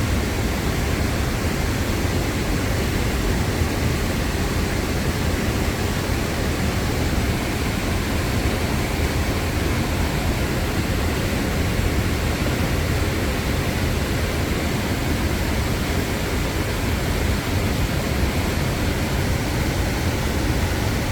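Steady rush of a river and waterfall, an even, unbroken noise with a strong low rumble.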